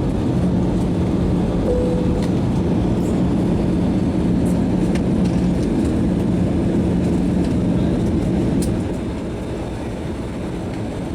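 Aircraft cabin noise during a landing: a steady low engine and air rumble with a hum. It drops in level about three-quarters of the way through.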